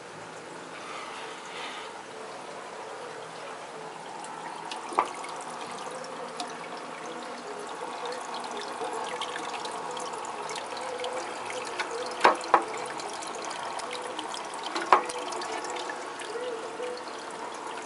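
Steady trickle of water in an aquarium, with a few sharp clicks standing out over it.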